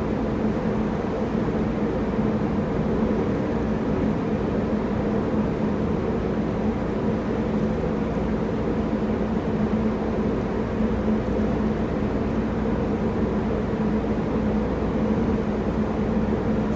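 A boat's engine running with a steady, even drone.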